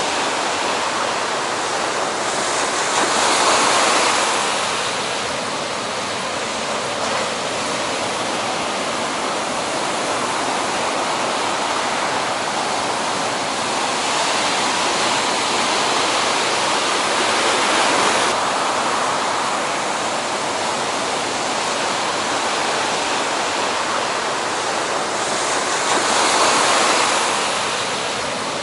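Heavy ocean surf breaking, a steady rushing roar that swells louder three times: a few seconds in, past the middle, and near the end.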